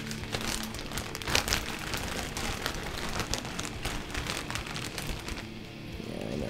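Rummaging: objects on a table rustling, crinkling and clicking as they are handled and shifted about, with a louder clatter about a second and a half in.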